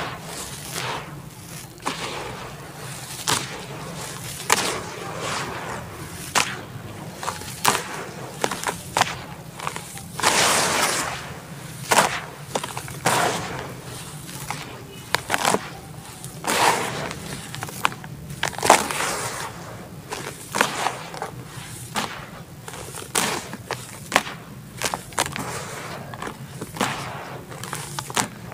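Dry red dirt crumbled by hand and dropped into a plastic basin: irregular gritty crunches and sharp cracks as clumps break, with longer rushing pours of falling powder, the longest about ten seconds in.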